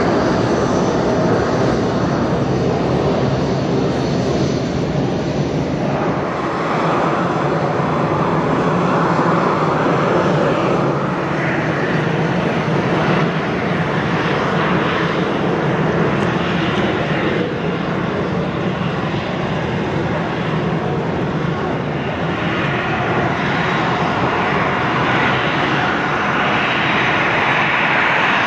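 Airliner jet engines running, a loud steady rush of noise that swells and eases slowly without stopping.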